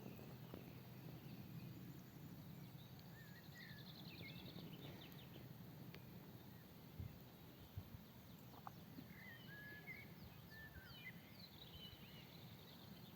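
Faint birdsong in woodland: scattered short chirps and quick trills from small birds, in two spells, over a low steady background hum. Two soft low thumps come about seven and eight seconds in.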